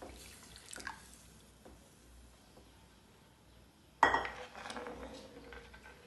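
Milk pouring into a metal pan while a steel spoon clinks and scrapes against the pan as it is stirred, with louder scraping and clinking starting suddenly about four seconds in.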